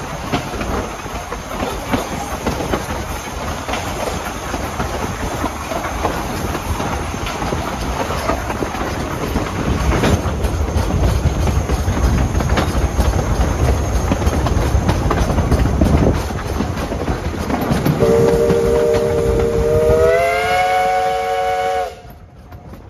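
Steady rolling rail noise and wheel clicks from a train riding behind East Broad Top No. 16, a narrow-gauge Baldwin 2-8-2 steam locomotive. About 18 seconds in, its steam whistle blows one long chord that rises in pitch partway through and ends abruptly near the end.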